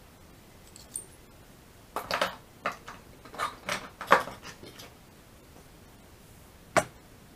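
Small hobby tools being handled: a run of clicks and clattering rattles about two to four seconds in, then one sharp knock near the end, like a tool set down on the work surface.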